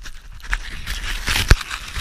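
Crunching and scuffing in snow with many small clicks, and one sharp knock about a second and a half in.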